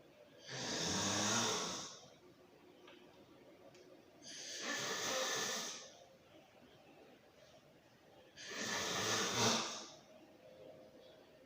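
A sleeping person snoring: three loud snoring breaths about four seconds apart, each lasting about a second and a half, the first and last carrying a low buzzing pitch, with quiet between them.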